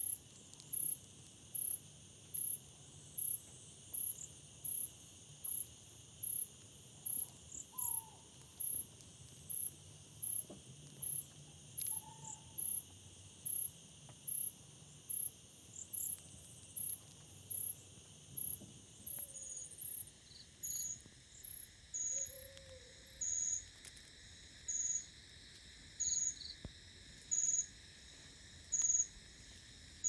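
Crickets chirping in a regular beat over a steady high insect hum. One high chirp comes a little faster than once a second. After about eighteen seconds a lower-pitched chirp takes over, about once every second and a half.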